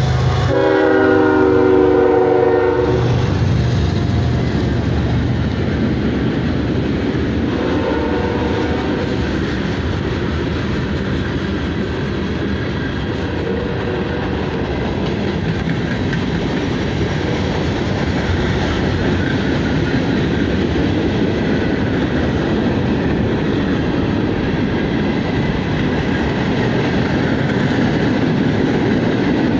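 CSX freight train passing: the locomotive's air horn sounds a chord for about two seconds near the start, with a shorter horn note about eight seconds in. Under it is the steady rumble and wheel clatter of the freight cars rolling by.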